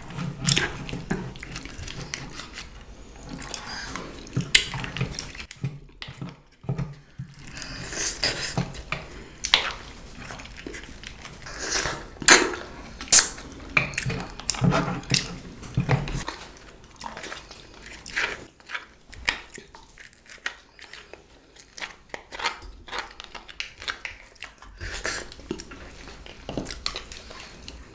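Tableware clinking and tapping while people eat: spoons and chopsticks knocking against bowls and plates in irregular, scattered clicks.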